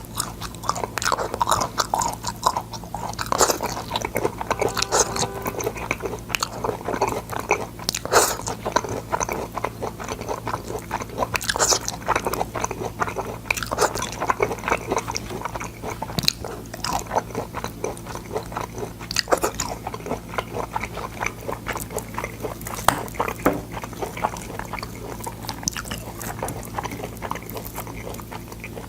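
Close-miked biting and chewing of boiled sword bean pods: irregular crisp crunches and wet mouth clicks throughout, over a steady low hum.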